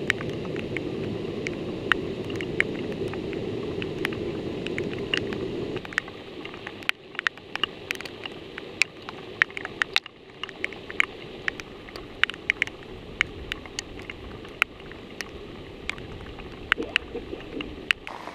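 Raindrops ticking irregularly on the camera over a steady low rushing noise, which drops quieter about six seconds in.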